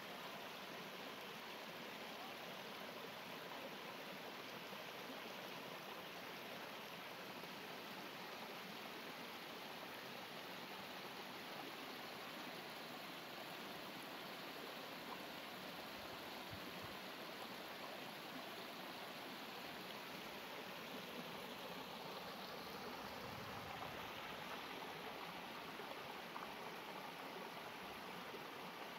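Steady rush of water from a flowing creek.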